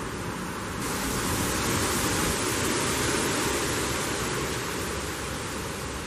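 Wind gusting through trees, with leaves rustling. A gust builds about a second in and eases slightly near the end.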